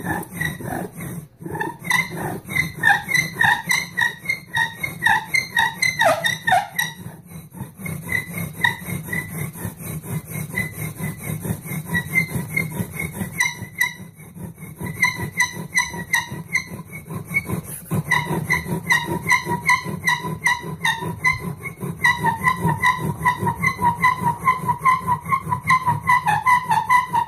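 Tamarack bow-drill spindle squeaking as it is sawed rapidly back and forth in the hearth board, a high squeal that pulses with each stroke of the bow, about three a second. The hearth is smoking heavily near the end, the stage when an ember is forming.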